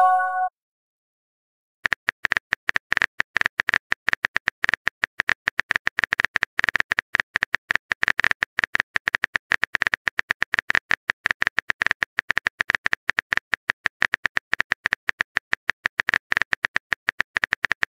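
Phone keyboard typing sound effect: a rapid, irregular run of short clicks that starts about two seconds in and goes on to the end. It is opened by a brief chime as a chat message appears.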